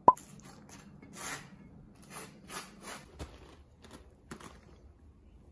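A sharp clink of tableware, then a run of short, soft scraping strokes at an uneven pace that stop about four and a half seconds in.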